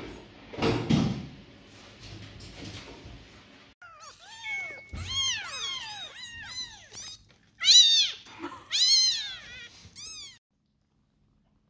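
Several young kittens meowing over and over in a cage, many short rising-and-falling cries overlapping, loudest about 8 and 9 seconds in, then cutting off abruptly. Before the meowing starts, rustling and a knock about a second in.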